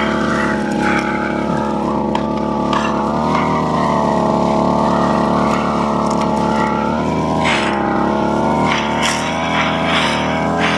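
Brush cutter engine running steadily at high speed as its weeding blade is worked through a rice paddy, with a few short rushing noises near the end.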